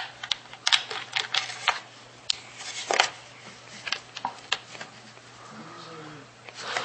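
Parts of a Power Wheels ride-on toy being handled and fitted, with screws and plastic pieces clicking and knocking in an irregular string of sharp clicks, thicker in the first three seconds.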